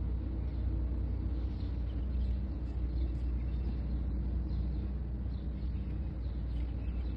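Outdoor ambience: a steady low rumble, with faint short high chirps now and then.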